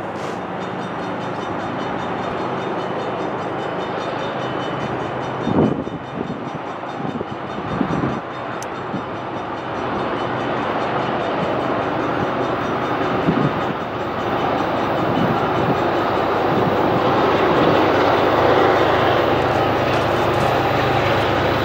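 Approaching freight train led by GE ES44 diesel-electric locomotives, a steady rumble of engines and wheels that grows louder as it nears. A few brief low thumps come about six and eight seconds in.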